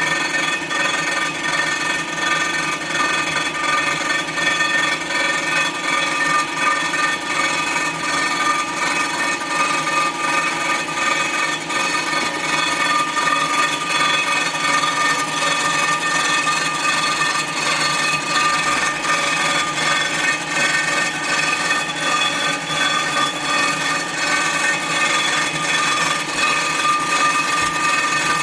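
Storm Vulcan Blockmaster 85B surfacing machine cutting the deck face of a cast-iron Jeep 258 cylinder head, resurfacing it flat. A steady rasping cut with several high ringing tones.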